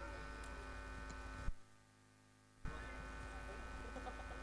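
Steady electrical hum and buzz from a stage PA system, made of several steady tones. About a second and a half in it cuts out with a click, then comes back about a second later with another click.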